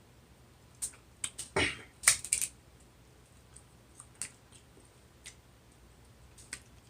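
Close-up eating sounds from a seafood meal: a quick cluster of sharp clicks and cracks about one to two and a half seconds in, one a fuller, wetter crunch, then a few faint clicks.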